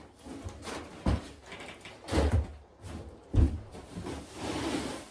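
Three dull knocks about a second apart as a wooden coop door is handled, then a rustle of wood-shavings bedding being moved near the end.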